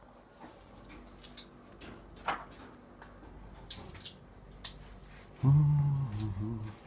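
Faint scattered clicks and light knocks of small parts being handled, then about five and a half seconds in a man's loud drawn-out vocal sound, wavering in pitch, lasting just over a second.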